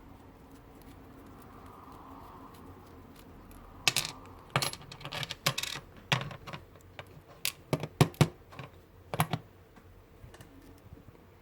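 Small hard objects being handled on a workbench: a dozen or so sharp, irregular clicks and clacks, starting about four seconds in and stopping shortly before the end, loudest near the middle.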